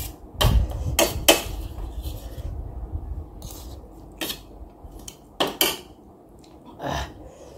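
Metal spoon and wooden chopsticks clinking and scraping against a metal plate while trying to pick up a boiled egg: a handful of sharp clicks at irregular intervals, several close together in the first second and a half, then more spread out.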